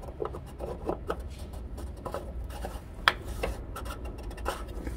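Gloved hand rubbing and scraping on the DEF pump filter cap and housing of an Isuzu NPR HD as the cap is fitted back on, with scattered light clicks and one sharp click about three seconds in.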